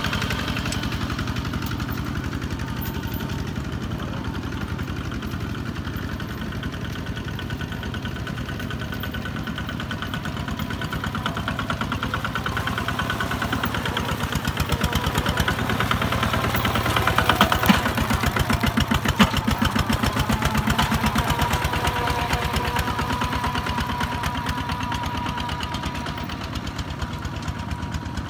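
Kubota ZT155 single-cylinder diesel engine of a two-wheel walking tractor chugging steadily under load as it pulls a trailer of rice sacks through mud. It grows louder about halfway through, with a couple of sharp knocks, then eases off as it moves away.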